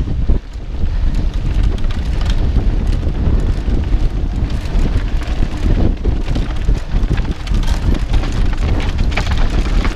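Wind buffeting a bike-mounted GoPro's microphone, a steady low rumble, over the crunch and crackle of mountain bike tyres rolling across a rocky dirt singletrack, with the bike and camera mount rattling on the bumps.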